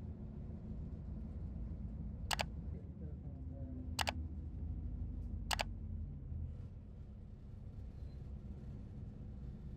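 Low, steady engine and road rumble heard inside a moving city bus. Three sharp clicks come in the middle, evenly spaced about a second and a half apart.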